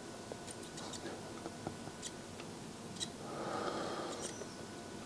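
Faint scattered small clicks and ticks of a small screwdriver working against the pins of an STK4162II hybrid amplifier module on a circuit board, with a soft hiss about three seconds in.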